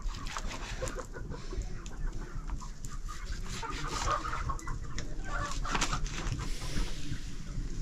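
Chickens clucking, among scattered clicks and knocks.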